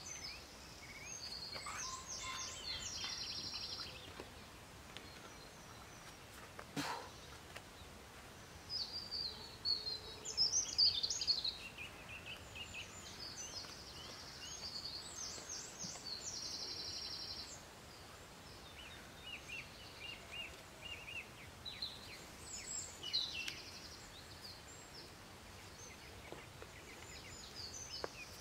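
Small birds singing: repeated short phrases of high chirps and trills every few seconds over a faint steady background hiss, with one sharp click about seven seconds in.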